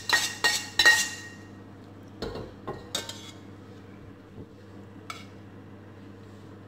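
A metal slotted spatula taps and scrapes a stainless steel frying pan, knocking omelette pieces into a pan of rice. Several sharp clinks come in the first second, then a few softer knocks and clicks as the rice is stirred, over a low steady hum.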